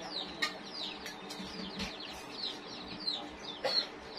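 Chicks peeping continuously: many short, high, falling peeps, several a second, overlapping. Two short knocks come through, one about half a second in and one near the end.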